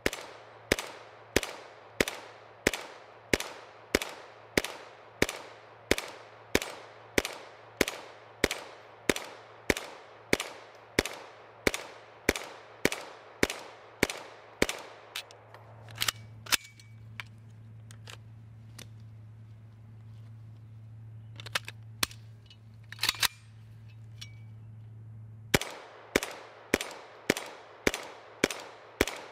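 Kalashnikov USA KR-9 9mm semi-automatic carbine fired in steady rapid strings, a little over two shots a second. About halfway through there is a pause of roughly ten seconds with only a few scattered shots, then the steady firing resumes.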